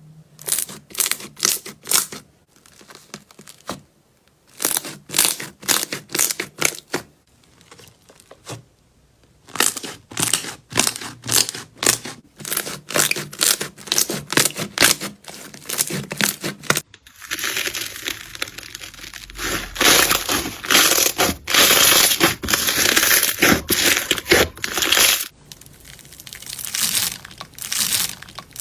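Slime being squeezed and pressed by hand, giving quick crackling strokes in uneven runs. A bit over halfway through it turns into dense, continuous crackling for several seconds, then the separate strokes return.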